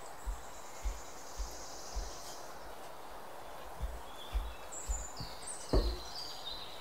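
Wooden spoon stirring thick almond-flour batter in a glass bowl: soft dull thuds about twice a second, with one louder knock of the spoon against the bowl near the end. Birds chirp at times.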